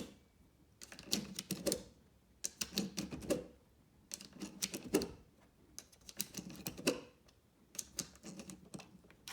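A PETG plastic speedloader pressing .22LR cartridges into an HK MP5 .22LR magazine: five bursts of small clicks and rattles, about one every second and a half, each ending in a sharper click.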